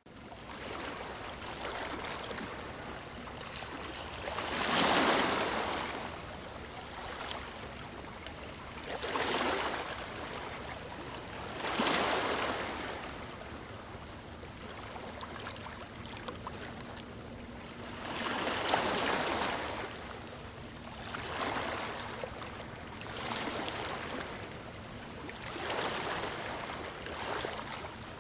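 Ocean waves breaking on a beach over a steady rush of surf. About seven louder swells of crashing water wash in every few seconds, the biggest about five, twelve and nineteen seconds in.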